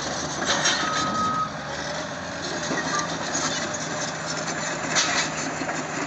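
Large crawler bulldozer at work: its diesel engine runs steadily under load amid track and earth-moving noise. A reversing alarm's beep tone sounds about a second in and again briefly around three seconds.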